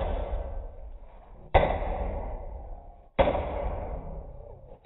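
Hammer driving a nail into a wooden frame joint: sharp blows at an even pace, about one every second and a half, each followed by a long fading ring.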